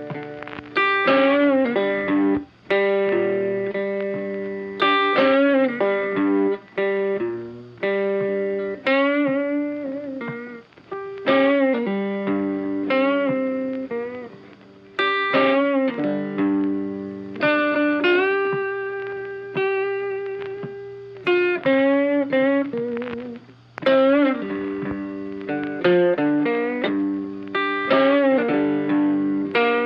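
Funky background music made of rhythmic phrases of sharply plucked notes that fade away, much like guitar.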